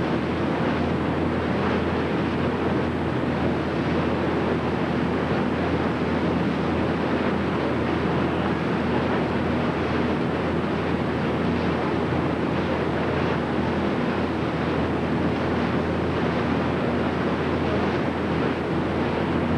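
Wind buffeting the camcorder microphone on a moving boat, over the steady drone of the boat's engine and water rushing past the hull.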